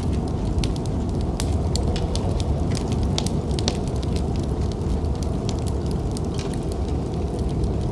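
Wood fire in a fireplace crackling, with frequent sharp irregular pops, over a steady low rumble of snowstorm wind.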